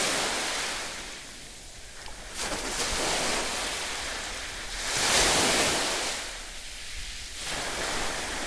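A steady rushing noise, like surf, that swells and fades about every two and a half seconds.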